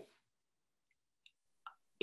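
Near silence: a pause in a man's speech, broken only by two faint short clicks near the end.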